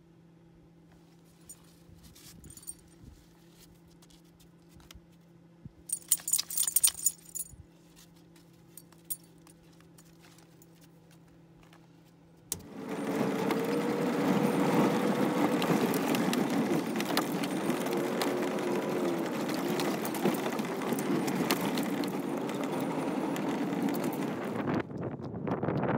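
A quiet low hum with a brief metallic jingle about six seconds in. About halfway through it gives way to the steady, loud noise of a vehicle driving along a dirt road, which runs on to the end.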